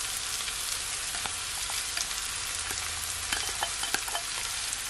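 Mixed vegetables, onion and garlic frying in oil in a skillet as cooked white rice is added: a steady sizzling hiss with scattered small crackles.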